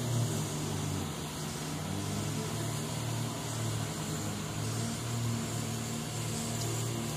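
A steady low mechanical hum with a hiss over it, as from a fan-driven machine running without pause.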